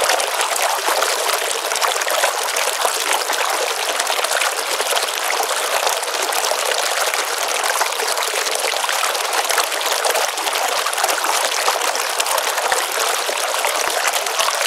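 Water flowing in a small pond stream: a steady, even rush of running water that never breaks or changes.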